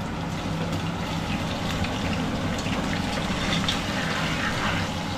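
Garlic and ginger sizzling and crackling in hot mustard oil in a pan, over a steady low hum.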